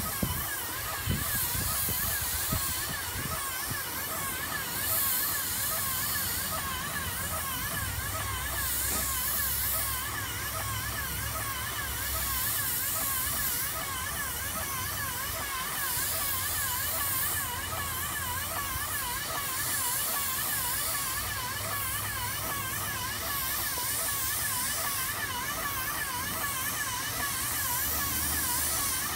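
Airless paint sprayer running steadily while primer is sprayed onto metal siding: a motor-pump whine that warbles up and down in a fast, even cycle over a low hum, with the hiss of the spray gun swelling and fading every few seconds.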